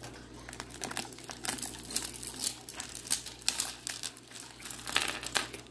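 Hands rummaging through loose costume jewelry, with rustling and many irregular light clicks as the pieces are moved and handled.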